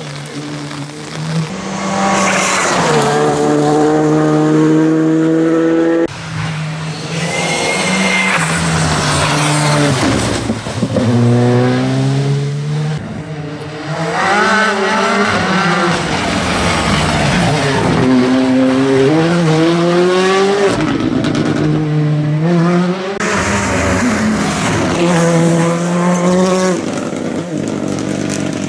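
Rally cars at full speed on a wet tarmac stage, one after another. Their engines rev up and drop back again and again as the drivers change gear and lift for corners, with tyre and spray hiss, and the sound cuts abruptly from one car to the next a few times.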